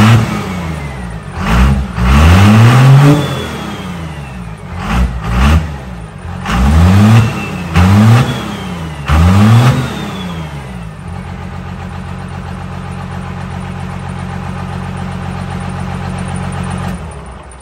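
First-generation Dodge Ram diesel engine, exhausting through a metal trash can fitted over its hood stack, revved hard about six times in quick succession, then idling steadily before it shuts off near the end.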